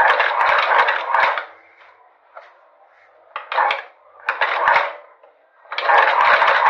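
Cobbler's cast-iron shoe-patching sewing machine stitching in short spurts of rapid clatter, then running steadily near the end.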